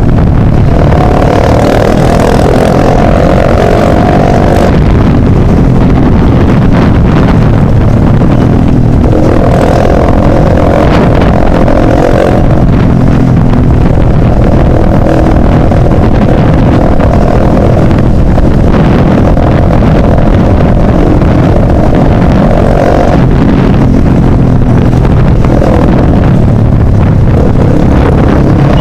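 Motorcycle with an open exhaust running loud at road speed, its engine note shifting in stretches as the throttle changes.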